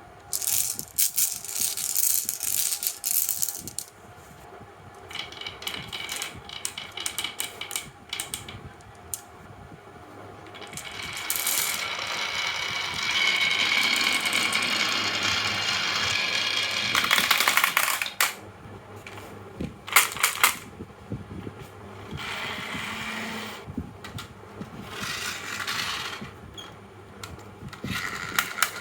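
Toy vehicles and marbles rolling and clattering down a HABA wooden slope track: bursts of rattling clicks, a longer rolling run in the middle, and a few sharp knocks.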